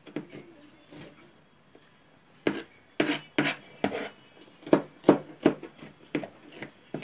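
Kitchen knife chopping onion and garlic on a plastic cutting board. After a couple of mostly quiet seconds, the blade knocks sharply on the board about twice a second.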